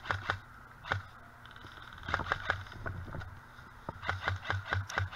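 Crunching and rustling of dry leaf litter under feet and a moving body, coming in irregular bunches of short crackles with soft thuds, near the start, about two seconds in and toward the end.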